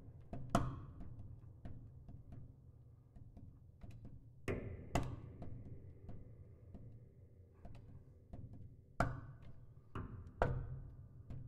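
Solo piano played sparsely and percussively: isolated sharp strikes a few seconds apart, some in quick pairs, each ringing on over a low, sustained resonance.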